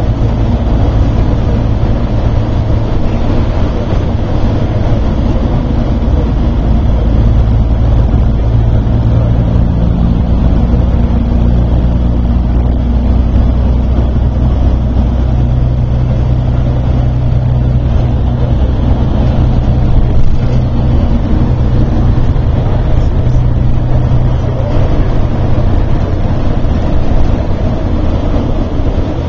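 Airport bus engine and tyre noise heard from inside the cabin while driving through a road tunnel. It is a loud, steady low drone, and the engine note shifts a little in pitch around the middle.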